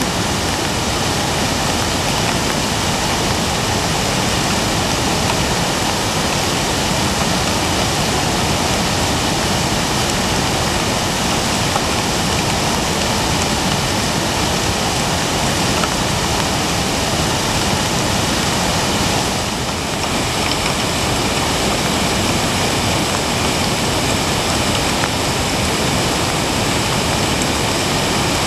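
Muddy floodwater rushing through a creek swollen to flood stage: a loud, steady, dense rush of water noise, briefly a little quieter about twenty seconds in.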